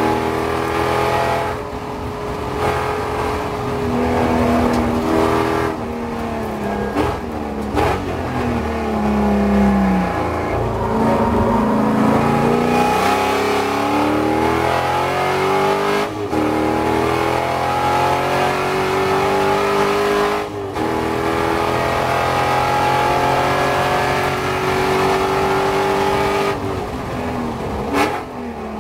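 C5 Corvette Z06's LS6 V8 race engine heard from inside the cockpit at racing speed. Its pitch falls as the car brakes hard for a corner about ten seconds in, then climbs back up under full throttle with brief breaks at the upshifts around sixteen and twenty seconds. It eases off again near the end.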